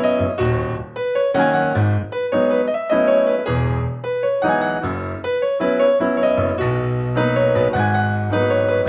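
Background music: keyboard notes struck in a steady rhythm over held low bass notes.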